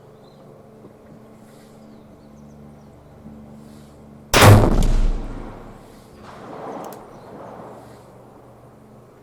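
A single rifle shot about four seconds in: a sharp, loud report whose rumble fades over about a second.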